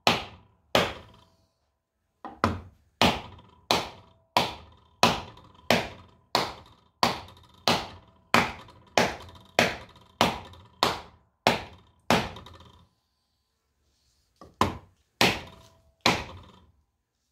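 Hammer blows on a soft wooden block laid over a steel wear ring, driving the ring into a 1950 Farmall Cub's front wheel hub. The blows come at a steady pace of about one and a half a second, each with a brief metallic ring, pausing twice.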